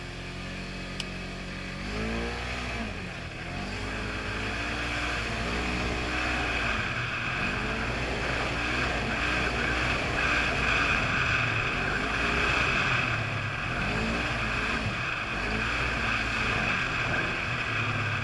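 The engine of a 2015 Polaris RZR 900 four-seat side-by-side running under way. It holds steady for about two seconds, then its pitch rises and falls over and over as the throttle comes on and off.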